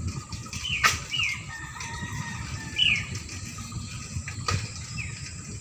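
Outdoor birds chirping: a few short, falling calls and some fainter chirps. Under them is a steady low rumble, and two sharp clicks come about a second in and near the end.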